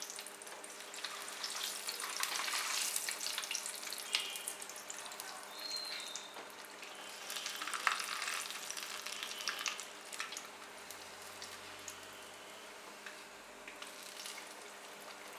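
A battered, flour-coated piece of fish sizzling in hot oil in a wok, with a spatula now and then knocking and scraping against the pan. The sizzle is louder for the first ten seconds or so, then settles lower.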